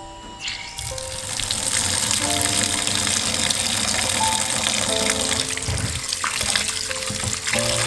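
Tap water running into a stainless steel bowl of sliced bitter gourd in a steel sink, starting about half a second in, with a hand swishing the slices through the water near the end. Soft background music plays over it.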